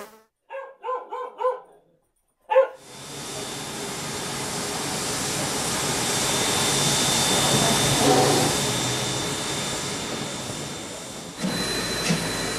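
A dog barking a few short times, then a steam locomotive letting off a long hiss of steam that swells and slowly fades over about eight seconds.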